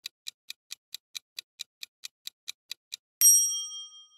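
Quiz countdown timer sound effect: quick, even clock ticks, about four to five a second. About three seconds in, a bright chime rings out and fades over most of a second as the time runs out.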